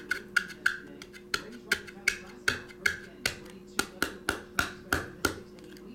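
Hard plastic card holder rapped hard and repeatedly against the palm of a hand, about three sharp knocks a second, each with a short ringing click, to knock the card loose so it comes out of the holder.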